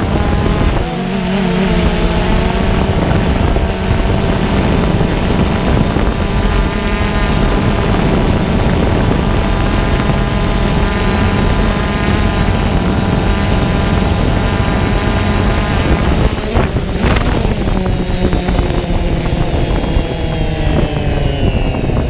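DJI Phantom 2 quadcopter's four rotors buzzing with a steady multi-tone whine, heard from the camera mounted on the drone, with wind noise. A couple of sharp knocks come about three-quarters of the way through, after which the motor pitch drops steadily.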